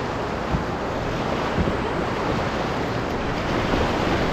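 Whitewater rapid in a high, swollen river, a steady rush of churning water heard from a canoe running through the waves, with wind buffeting the microphone.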